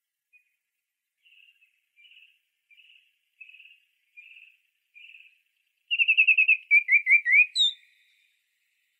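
Songbird singing: a run of soft, evenly spaced notes that grow louder, then about six seconds in a loud, quick trill followed by a few slurred notes.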